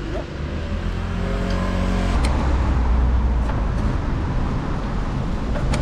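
Road traffic: a vehicle engine humming steadily, then a louder rushing noise with deep rumble from about two seconds in, with a few sharp clicks.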